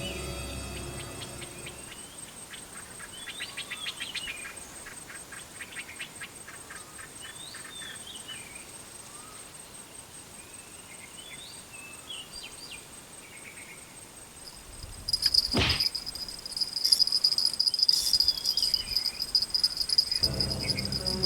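Outdoor nature sounds: birds chirping and insects calling. A loud, steady high-pitched insect buzz comes in about 15 seconds in, with a single falling sweep just after it starts. Background music fades out at the start and returns near the end.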